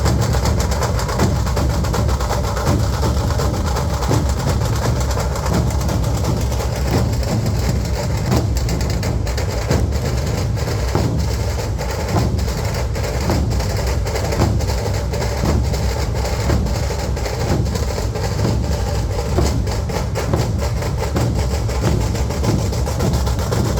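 Dhol drums beaten in a continuous, dense rhythm with a heavy low boom under the strokes.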